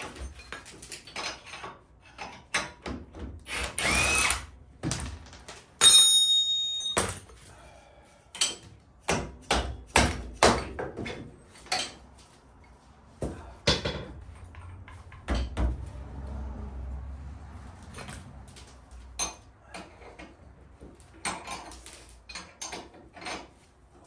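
Taking off a rear lower suspension link: a short whir of a cordless power tool about four seconds in, then a string of metal clanks, knocks and taps from hand tools and the link hardware. The loudest is a ringing clank just before six seconds.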